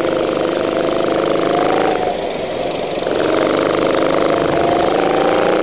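Go-kart engine running under throttle, its pitch climbing. It eases off about two seconds in and picks up again a second later, climbing once more.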